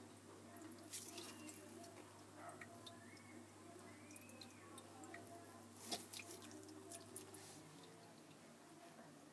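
Near silence: room tone with a steady low hum and a few faint clicks, the sharpest about a second in and about six seconds in.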